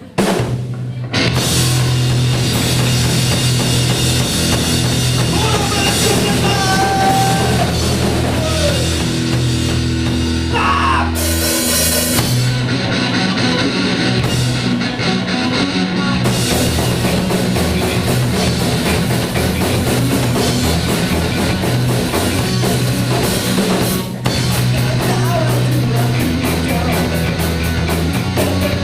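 Rock band playing loudly, with a pounding drum kit, kicking in about a second in after a brief break.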